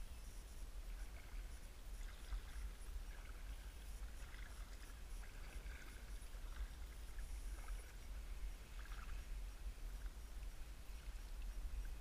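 Double-bladed kayak paddle dipping and dripping in calm water in irregular strokes as a folding kayak is paddled, over a steady low rumble.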